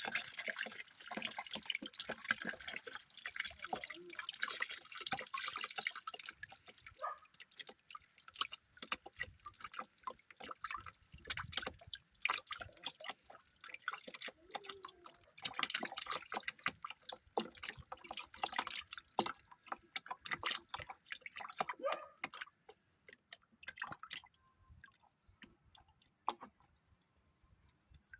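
Water splashing and dripping in quick irregular bursts, dying down to a few faint drips about three-quarters of the way through.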